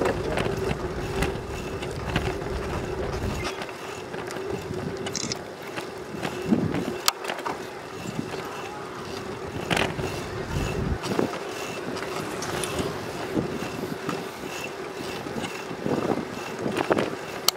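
Bicycle rolling along a paved path: a steady hum of tyres and drivetrain with scattered clicks and rattles, and wind buffeting the microphone for the first few seconds and again around ten seconds in.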